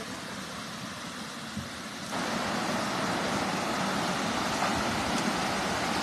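Steady rushing of a shallow stream and of water pouring over a small concrete weir. The rush gets abruptly louder about two seconds in.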